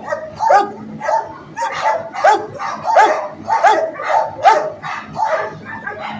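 Large dog barking over and over in a shelter kennel, about one bark every two-thirds of a second.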